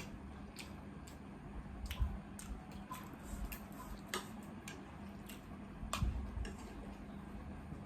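Eating sounds: scattered small clicks and smacks of mouths chewing food, irregularly spaced, over a steady low hum.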